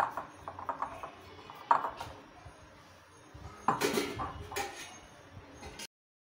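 A glass bowl and kitchenware clinking and knocking on a stone counter as a ball of kneaded dough is handled and the bowl set aside, with a few sharp knocks, the loudest about two seconds and four seconds in. The sound cuts off completely just before the end.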